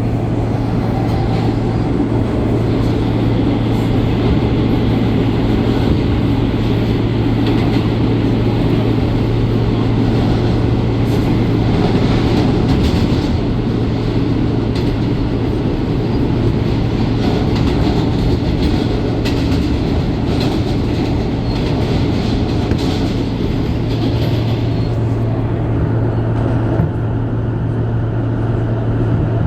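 R160 subway car running at speed, heard from inside the car with its air conditioning switched off: a steady low hum over rolling wheel-on-rail noise, with a run of clicks over the rail joints through the middle.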